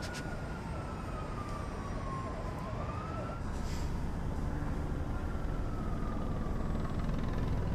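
A siren wailing in slow sweeps, falling in pitch, swinging back up about three seconds in, then falling again, over the steady low rumble of road traffic.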